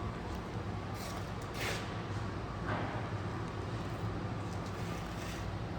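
Steady low engine hum of a vehicle on the move, with a couple of short rustles near the start.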